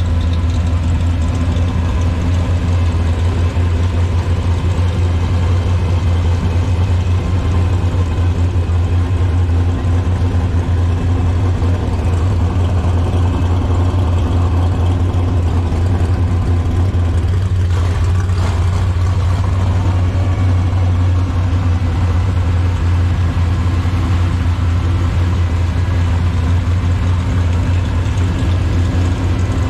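Hot rod engine idling with a steady, deep, low rumble that holds even throughout.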